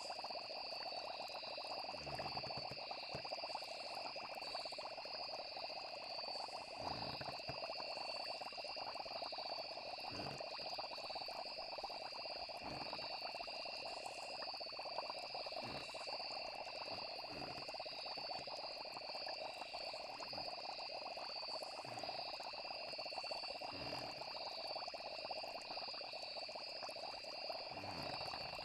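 A night chorus of frogs and insects, with crickets trilling steadily in two high, unbroken tones over a dense croaking chorus. Low, soft plops come every second or two at irregular intervals.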